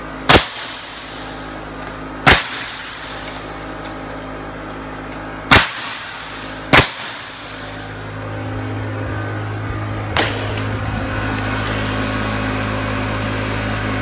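MAX HN120 high-pressure concrete nailer firing four times, sharp loud shots about two, three and one second apart, driving nails through plywood subflooring. A MAX air compressor's motor runs steadily underneath and comes up louder in the second half.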